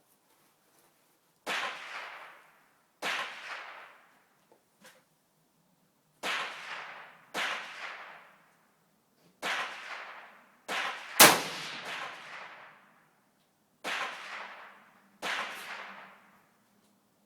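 Nine rifle shots from a .17 HMR rifle, spaced unevenly about one to three seconds apart, each followed by a short echoing tail. The shot about eleven seconds in is the loudest and sharpest, and two faint clicks come between the second and third shots.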